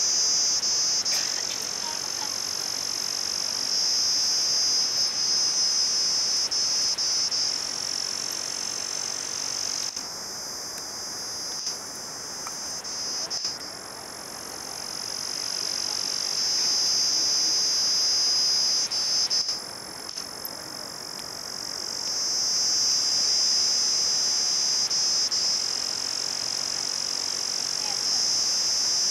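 Night insects, crickets, chirring in a steady high-pitched chorus that swells and eases every few seconds.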